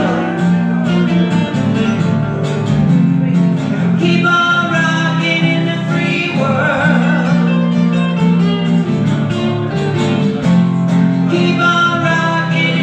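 Live acoustic duo: two acoustic guitars played together, with singing over them.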